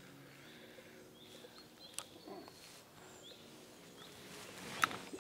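Quiet outdoor ambience with faint bird chirps, broken by a sharp click about two seconds in and a louder one near the end.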